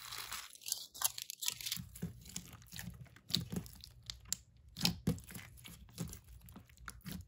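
Small plastic bag crinkling as add-ins are shaken out of it, then irregular clicking and crackling of blue store-bought slime being pressed and kneaded with the fingers.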